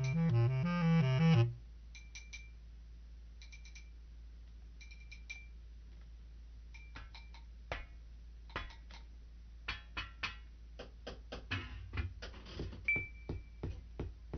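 Music with a stepping bass line that stops abruptly about a second and a half in, followed by a low hum with sparse light clicks and short high pings, growing more frequent toward the end.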